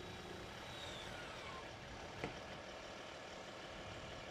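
A steady rumbling noise bed with a thin whistle falling in pitch about a second in, then a single sharp bang from a distant explosion about two seconds in.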